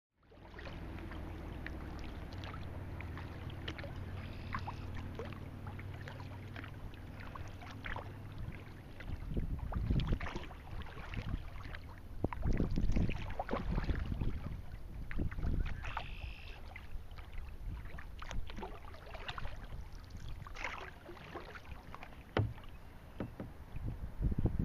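Kayak paddling: the paddle blades dip and splash and water slaps against the hull in irregular strokes from about nine seconds in. Under it runs a steady low rumble of wind on the microphone.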